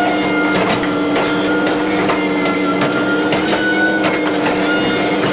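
Hitachi ZX210F-5G super long front excavator's diesel engine running steadily under load, with a higher whine that comes and goes, while the bucket works through mud and brush. Scattered sharp cracks and snaps of breaking branches.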